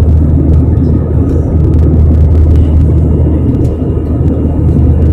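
Airbus A319 cabin noise during the climb after takeoff: a loud, steady, low rumble of the jet engines and rushing air, heard from a seat beside the wing.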